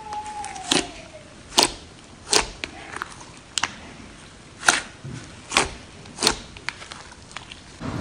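Slime being squished and worked, giving about seven sharp pops from trapped air at uneven intervals.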